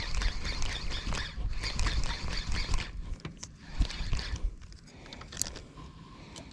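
Shimano Vanford spinning reel being cranked quickly while a jig is worked, a rhythmic mechanical clatter that eases off about three seconds in and turns quieter near the end.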